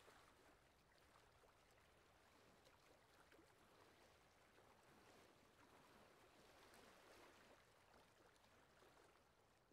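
Near silence, with a faint wash of small waves breaking on a pebble beach that swells and fades slowly a few times.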